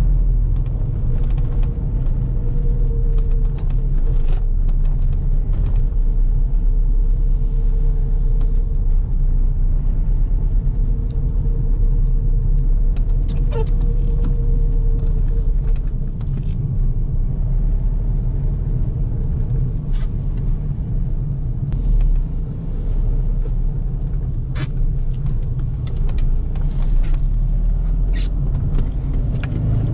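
Fiat Multipla driving, heard from inside the cabin: a steady low rumble of engine and road noise, with a faint steady whine through the first half and scattered small clicks and rattles.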